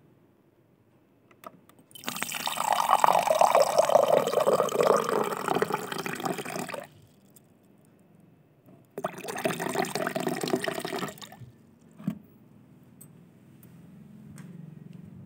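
Water running in two spells: one of about five seconds, then a shorter one of about two seconds, with faint clicks between.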